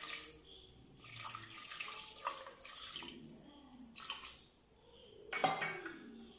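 Water poured from a small steel cup onto chopped yam pieces in a non-stick pot, splashing in several separate pours, the loudest near the end.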